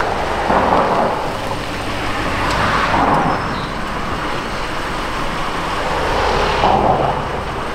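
Dodge Durango SUV driving slowly up the road and pulling to a stop nearby, engine running and tyres on asphalt, with a low steady rumble and a few swells of road noise.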